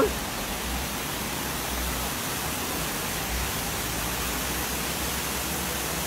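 Steady rush of shallow water running through a concrete channel.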